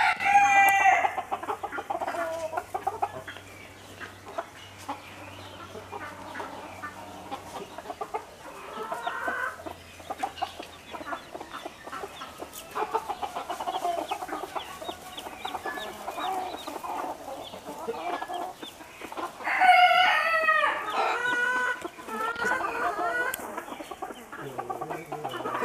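Silkie hens clucking over their chicks, with chicks peeping throughout; louder, drawn-out hen calls at the start and again about twenty seconds in.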